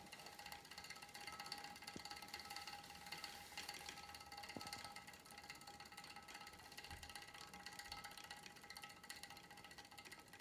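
Star Trac Spinner 7070 spin bike rattling as it runs: a fast, faint run of light metallic ticks with a thin ringing. The owner puts the rattle down to chain vibration.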